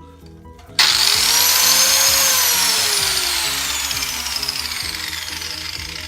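Angle grinder cutting tile: it comes on suddenly with a loud, hissing whine about a second in. The pitch rises briefly, then falls slowly as the sound fades toward the end.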